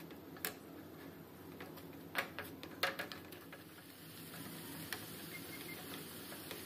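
Wooden spatula stirring a wet onion-tomato masala in a metal pan, knocking against the pan a few times, over the steady sizzle of the mixture simmering in its added water.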